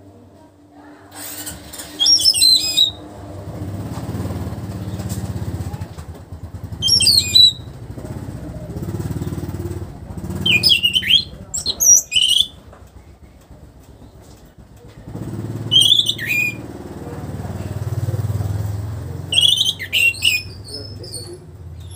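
Orange-headed thrush (anis merah) singing short, loud phrases of sharp, quickly changing notes, about six phrases a few seconds apart. Underneath, a low engine rumble swells and fades twice.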